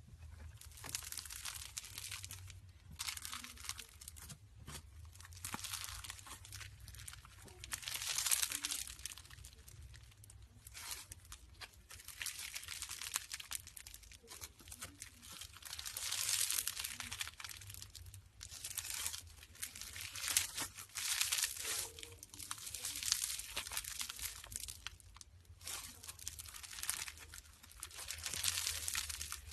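Slime being squeezed and stretched by hand, giving a crackling, crinkling sound in irregular surges a second or two long with short pauses between them.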